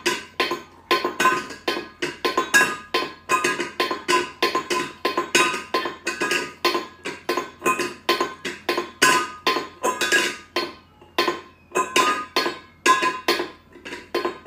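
Cat licking at a stainless steel bowl, clinking the metal about three to four times a second, each clink ringing briefly.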